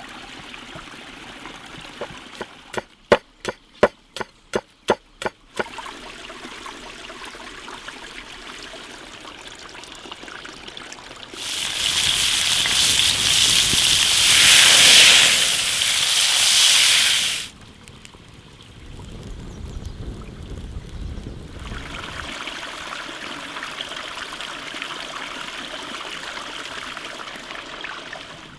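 Running water of a stream, loudest for about six seconds in the middle. Near the start, a quick run of about nine sharp clicks.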